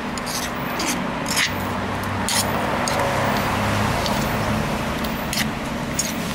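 Metal spoon stirring a wet chili-lime dipping sauce in a granite mortar, with irregular clinks and scrapes of the spoon against the stone. A steady low hum runs underneath and grows a little louder in the middle.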